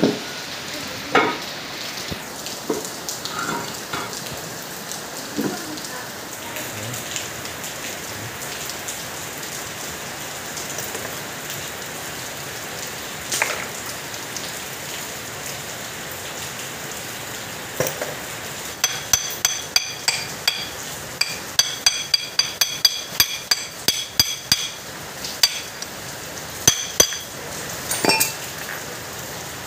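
Metal transmission parts clinking as they are handled, with a few scattered clicks early on and, from about two-thirds of the way in, a quick run of sharp, ringing metallic clinks lasting several seconds. Steady rain hisses underneath throughout.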